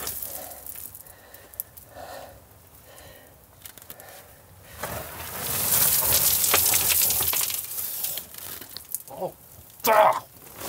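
Crunching and scraping of gravel and rock as a person crawls and shifts through a tight mine tunnel. The movement turns into a dense run of crackles and clicks about halfway through, and a short vocal sound comes near the end.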